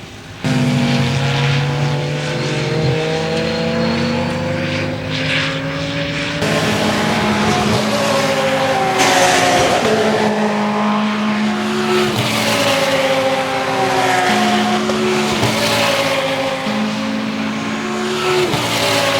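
Audi R8 LMS Ultra's V10 race engine, first holding a fairly steady lower note, then accelerating hard. Its pitch climbs and drops sharply again and again at each upshift through the gears.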